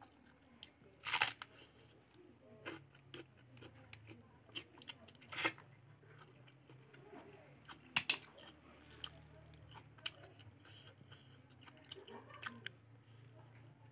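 Close-miked eating sounds: chewing and crunching a mouthful of raw cabbage leaf with pork and rice, with small wet mouth clicks throughout and three louder crunchy bites, about a second in, around five seconds and around eight seconds.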